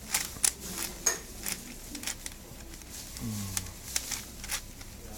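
Plastic layers of a 4x4 Rubik's cube being turned by hand: a quick, irregular run of sharp clicks, about two or three a second.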